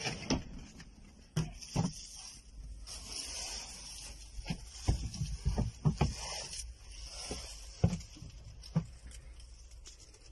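Handling noise inside a small vehicle cab: irregular soft thumps, knocks and rubbing, with a steady hiss underneath.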